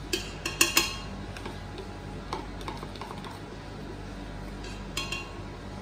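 A spatula scraping melted chocolate out of a small bowl into a stand mixer's steel bowl: a quick cluster of sharp clinks in the first second, light taps, and another clink about five seconds in, over a steady low hum.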